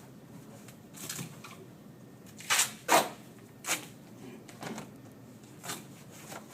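Tape being pulled off the roll and worked onto ductwork: a series of short rasping rips, the loudest two about two and a half and three seconds in.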